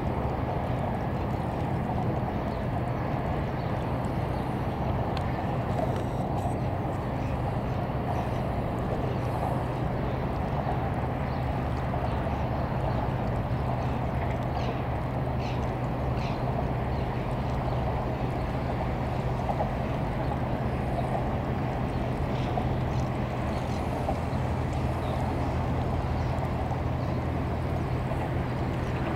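Small fishing boat's engine running steadily as it motors slowly along, a low even hum, with a few faint short bird calls here and there.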